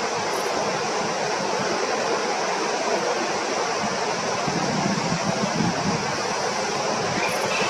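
Steady rushing noise, even and unbroken, of the kind made by wind on the microphone or flowing water.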